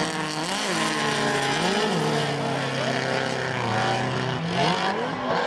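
Drift car engine revving hard during a sideways slide, the pitch climbing and dropping about a second in and near two seconds, held steady for a while, then rising again near the end, over a steady hiss of spinning tyres.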